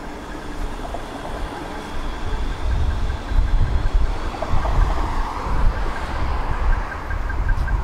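Electric tram in motion: a steady low rumble of the running gear, with a faint whine rising in pitch through the middle as it speeds up.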